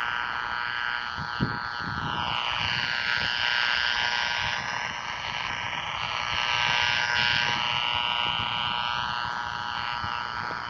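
Powerline RFI noise heard through a 440 MHz AM radio receiver: a steady buzz from the radio's speaker, its tone shifting slowly as the beam antenna is aimed at the offending utility pole. Such noise is the sign of arcing hardware on the power line.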